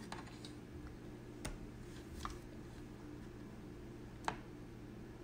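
Faint scattered clicks and taps of plastic cookie cutters and fingernails against set wax and a metal pan as the cutters are worked loose, the sharpest click near the end.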